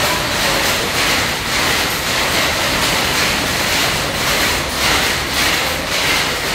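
A shed full of powerlooms with electronic jacquard heads all running at once: a loud, dense, continuous mechanical clatter of many overlapping beats.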